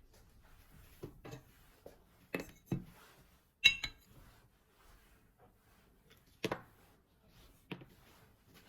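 Kitchenware being handled: a scatter of short knocks and clinks of dishes and utensils, the loudest a ringing clink of glass or china about three and a half seconds in.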